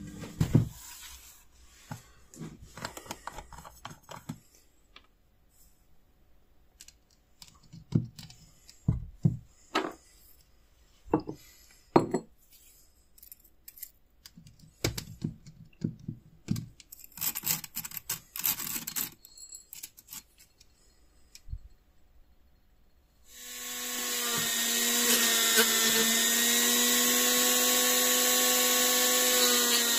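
Scattered clicks, taps and rattles of small hard objects being handled. Then, about three quarters of the way through, a handheld rotary tool starts and runs with a steady whine.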